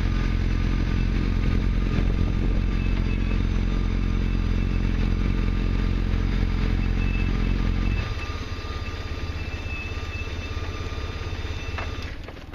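Motorcycle engine running at idle while stationary. About eight seconds in the sound drops sharply and carries on much quieter.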